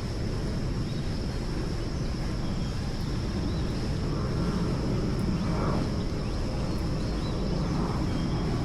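Airbus A319 airliner flying overhead, a steady low jet rumble that grows a little louder toward the end.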